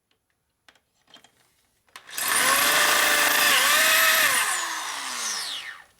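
Power drill with a reground carbide bit boring through a hardened steel bolt: the drill starts about two seconds in and runs at a steady high pitch, dips briefly under load, then winds down in a falling whine and stops just before the end.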